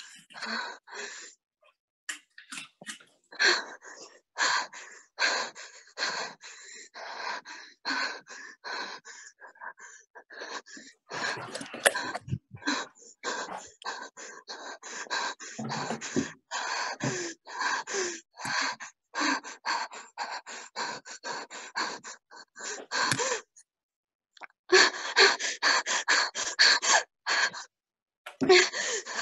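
A young woman breathing in quick, gasping breaths close to the microphone, with a short pause near the end.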